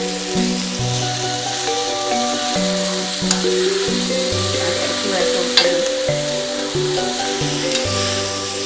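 Noodles sizzling in a hot wok as they are stir-fried and tossed with a metal spatula. Two sharp clinks of the spatula against the wok come about three and five and a half seconds in. Background music with a melody and bass line plays throughout.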